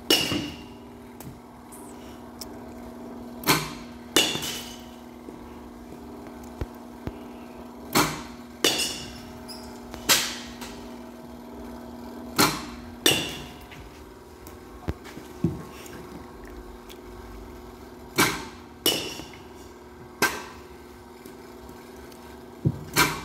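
A bat hitting pitched balls in a batting cage: sharp cracks every few seconds, often in pairs less than a second apart, over a steady hum.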